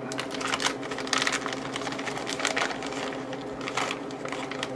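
Small plastic parts bag crinkling and rustling in the hands as it is opened, in a run of irregular crackles.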